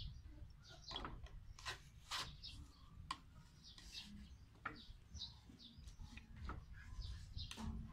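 Faint clicks and scrapes of a kitchen knife cutting and prying the flesh of a watermelon half away from its rind, with small birds chirping in the background.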